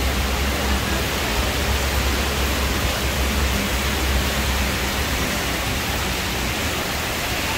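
Heavy tropical downpour: a loud, steady, dense hiss of rain, with a low rumble underneath that eases about five seconds in.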